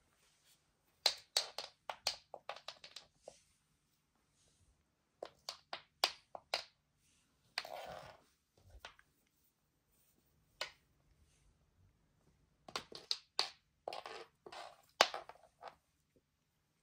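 Kitten playing with a wand toy: several bursts of quick, scratchy clicks and rustles as its claws and body scrabble on a rug and wooden floor and snag the toy. There is a longer rustle about eight seconds in, and quiet pauses between the bursts.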